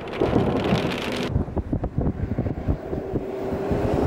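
Strong storm wind buffeting the microphone: a rushing hiss for about the first second, then rapid, uneven low gusts.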